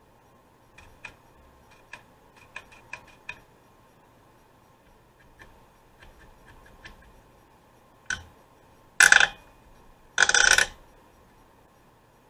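Light clicks and taps of small parts and hand tools during reassembly of an old chainsaw, about a dozen spread through the first seven seconds. Then a louder knock and two loud, harsh scraping sounds about a second apart, the second lasting about half a second.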